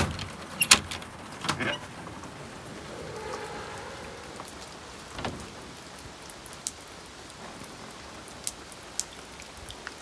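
A metal door lock clicking and a wooden door knocking open in the first couple of seconds, then steady rain falling outside with scattered drips.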